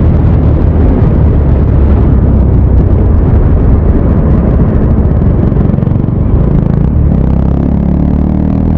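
KTM 390 Duke single-cylinder motorcycle with an SC Project aftermarket exhaust running at high speed, heard as a loud steady roar of wind over the microphone with the engine and exhaust underneath. Near the end the engine's note comes through as a steady tone.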